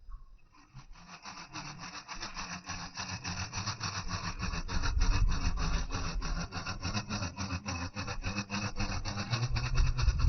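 RC crawler driving: its electric motor and gears whirring, with a rapid, dense crackle from the tyres on the ground. It starts about half a second in and grows steadily louder.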